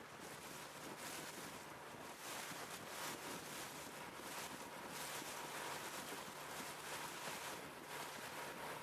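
Wind buffeting the microphone and water rushing past a moving boat, a gusty hiss that swells and eases, with a faint steady hum underneath.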